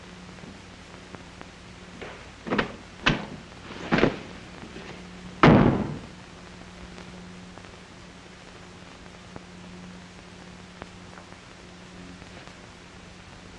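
A few knocks and thumps of objects being handled, then a louder door slam about five and a half seconds in. A low steady hum runs under it.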